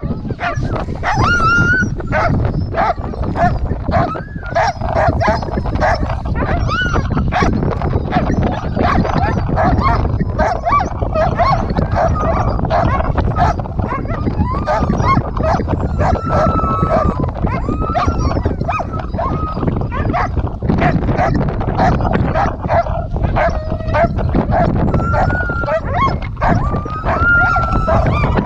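Several husky sled dogs on a chain line yelping, barking and howling at once, many overlapping high calls that rise and fall with no break, while one dog is being put into its harness.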